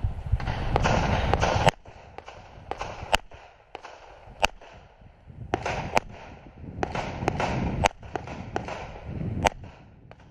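About six sharp pistol shots, spaced one to two seconds apart, fired at paper targets during a USPSA stage, with a rushing noise on the microphone between them.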